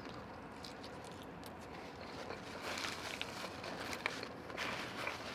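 Close chewing of a mouthful of fried food with soft wet mouth noises, and a paper napkin rustling and wiping in the second half.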